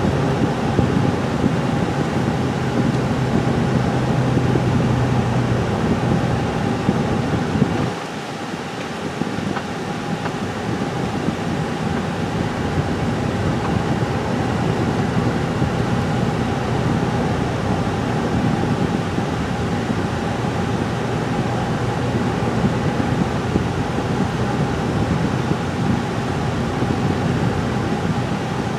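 Steady road and engine noise heard inside a moving car's cabin, with a low hum that fades and a slight drop in level about eight seconds in.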